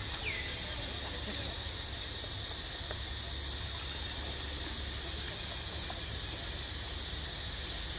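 Steady high-pitched drone of insects, with one short falling chirp just after the start.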